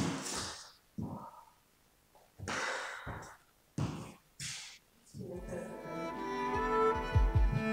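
Background string music fades out, leaving four short, breathy exhales from a dancer catching her breath. The string music comes back in about five seconds in, with a few low thumps near the end.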